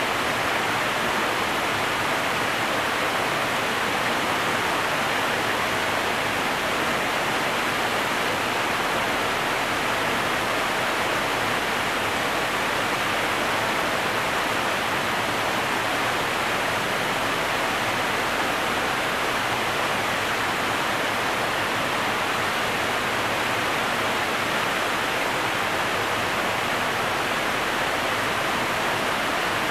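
Steady rushing of water at an Erie Canal lock, an even noise that does not let up.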